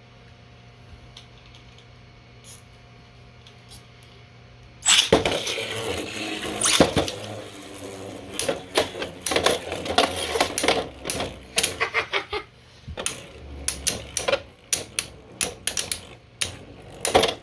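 3D-printed plastic Beyblade spinning tops battling in a stadium. After a few quiet seconds they start about five seconds in with a sudden loud rush, followed by rapid, irregular sharp clacks as they collide, some hits much louder than others.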